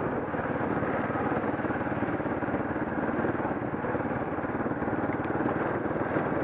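Single-cylinder trail motorcycle engine running steadily while riding a dirt track, heard from on the bike.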